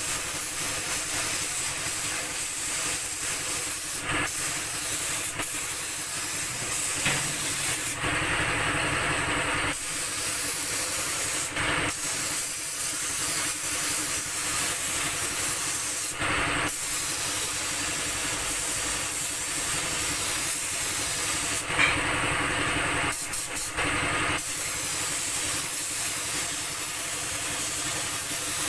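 Compressed-air paint spray gun hissing steadily as paint is sprayed, the hiss shifting in tone briefly several times.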